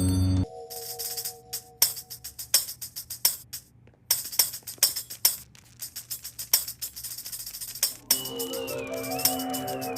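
Tambourine struck and shaken in short, irregular jingling hits, about a dozen of them, separated by brief gaps. About eight seconds in, a different instrument takes over with held chord notes and a high tone that wavers up and down.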